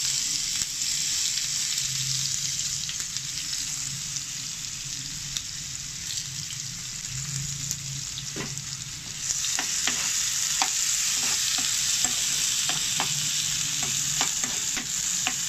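Pounded ginger and garlic with cumin and mustard seeds sizzling in hot oil for a tempering, stirred with a spoon that clicks against the pan again and again. The sizzle gets louder about nine seconds in.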